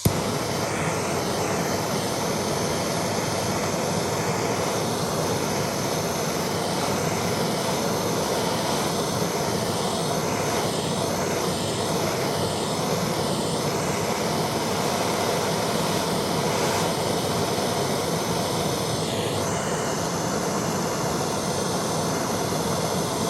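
Handheld gas blowtorch burning with a steady, even rushing hiss as it heats a copper end-feed joint for soldering, so the solder is drawn into the fitting. The flame noise starts abruptly.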